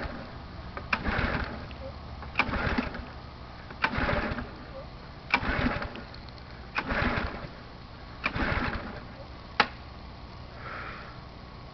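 Simoniz 2350 PSI pressure washer's small gas engine being pull-started by its recoil cord, six pulls about a second and a half apart, each a quick rattling crank that dies away without the engine catching. A single sharp click follows near the end. The owner suspects the engine is not getting fuel.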